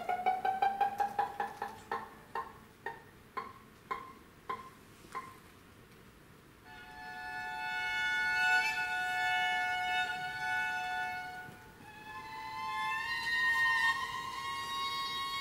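Solo viola d'amore: a run of short plucked notes, quick at first, then slowing and spacing out until about five seconds in. After a short pause come long bowed notes, two held together as double stops, in two phrases.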